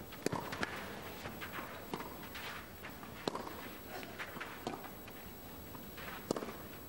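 Tennis rally on clay: sharp pops of the ball off the racket strings and its bounces, coming every second or so, with the players' shoes scuffing and sliding on the clay between shots.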